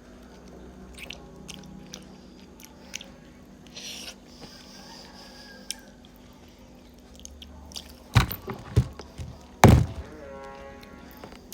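Close-miked eating sounds of beef trotter (kaki jawi): soft chewing and wet smacking clicks, then a few loud knocks about eight and ten seconds in.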